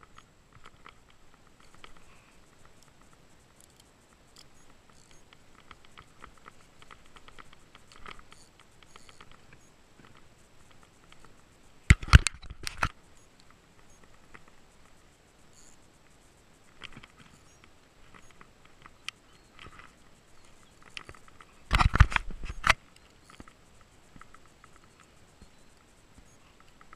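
Light ticking and rustling handling noise on a fishing kayak, with two loud clusters of knocks, about 12 and 22 seconds in, each lasting under a second.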